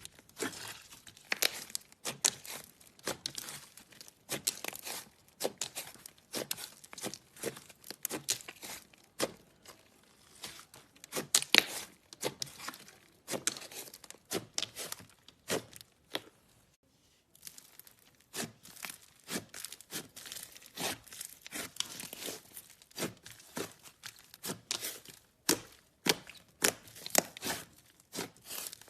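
Slime being worked by hand, giving a dense run of sharp crackling and popping clicks, with a brief pause about two-thirds of the way through.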